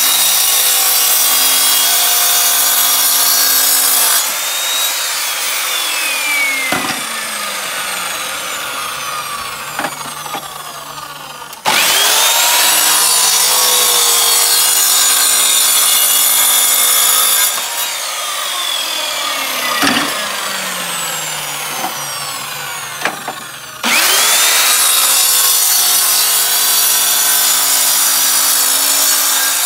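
Evolution mitre saw cutting roofing tiles: the blade grinds through the tile with a loud rush, which drops to a quieter grinding after a few seconds. The saw starts again with a rising whine and a sudden loud rush about 12 seconds in and again about 24 seconds in.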